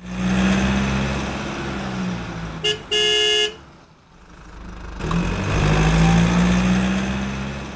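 Intro sound effect of a car: an engine drone that fades, then a horn beeping twice, a short toot and then a longer one, before the engine swells up again and fades away like a car driving past.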